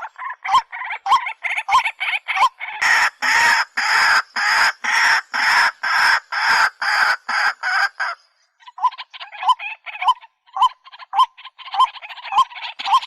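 A bird calling over and over in short notes, about two a second. From about three seconds in, the calls turn louder and harsher for several seconds. They break off briefly just after eight seconds, then start again.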